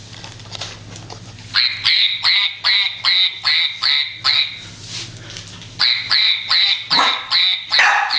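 Puppy yapping in short, high-pitched yips, about three a second, in two runs with a brief pause between them.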